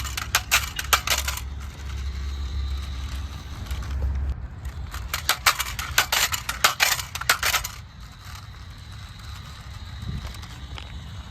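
A small remote-control toy car clattering, with two spells of rapid sharp clicking and rattling, the first right at the start and the second from about four and a half to eight seconds in, over a low rumble.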